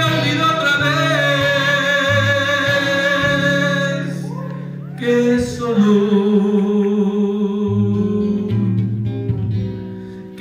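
A man singing over a strummed acoustic guitar, holding two long notes: the first for about four seconds, the second starting about five seconds in, dropping in pitch and holding to the end.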